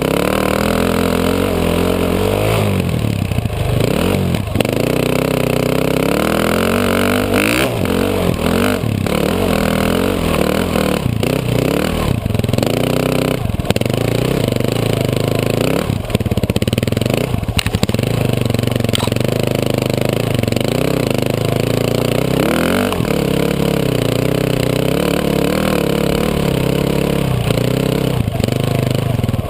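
KTM 450 dirt bike's single-cylinder four-stroke engine running under constantly changing throttle, its pitch rising and falling again and again as the bike rides a rough trail. Short knocks and clatter from the bike bouncing over the ground are mixed in, all heard from the bike's rear fender.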